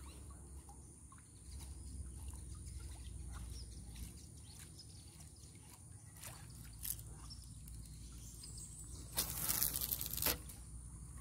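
Quiet water sloshing and trickling around a fishing kayak, with scattered small clicks. About nine seconds in comes a louder rushing noise lasting about a second.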